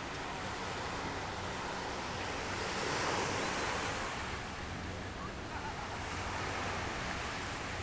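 Small waves breaking and washing up a sandy beach. The surf swells loudest about three seconds in and then eases off, over a faint steady low hum.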